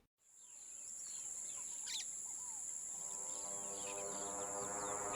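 Jungle ambience fading in: a steady high insect drone with scattered bird chirps and calls. A low sustained humming drone joins about three seconds in.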